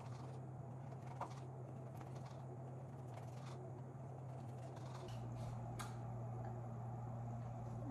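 Knife slicing a cured sausage on a stone cutting board, with a few faint taps as the blade meets the board, over a steady low hum.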